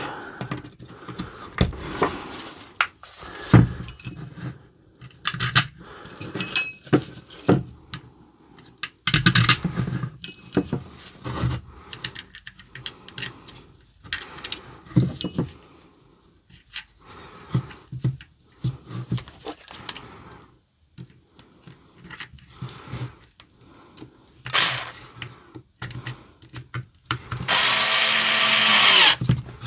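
Plastic case of a cordless tool battery being handled and fitted together, with scattered clicks and knocks. Near the end a power screwdriver runs for about two seconds, driving in a case screw.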